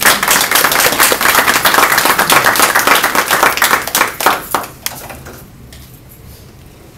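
Audience applauding in a small meeting room: dense clapping that thins out and stops about five seconds in.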